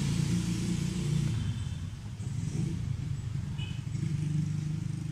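Motor vehicle engine hum. It eases off about a second and a half in and swells again near the end, with one short high chirp in between.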